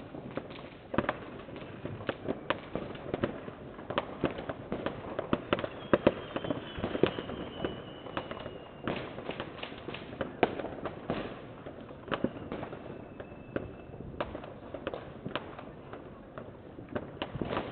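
Fireworks and firecrackers going off all around in irregular cracks and bangs, several a second. Two faint thin whistles, falling slightly in pitch, come about six and twelve seconds in.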